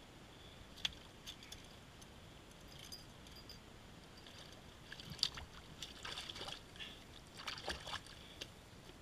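Chest waders stepping through shallow, muddy stream water: a single sharp click a little under a second in, then sloshing and splashing steps from about five to eight seconds in.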